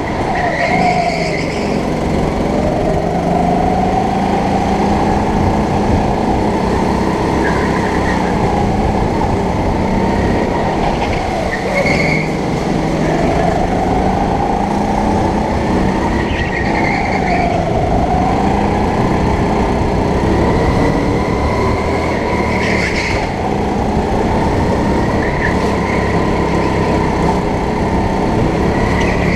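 Rental go-kart engine heard close up from the driver's seat, revving up and easing off in pitch every few seconds as the kart laps the corners. Short high squeals come now and then.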